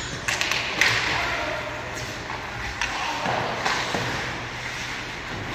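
Ice hockey faceoff and play: sticks clacking on the puck and ice and skate blades scraping, a string of sharp knocks spread over several seconds.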